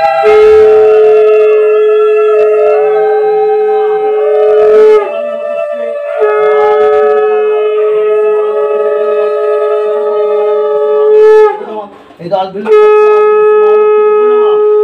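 Conch shell (shankha) blown in three long blasts, each held at one steady pitch, with short breaks between them.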